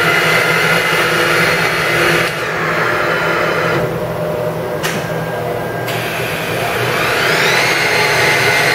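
Fadal 3016 vertical machining centre running: an electric machine whine made of several steady tones. The upper tones fall away about two seconds in, a short click sounds near the middle, and near the end the whine rises in pitch and then holds steady.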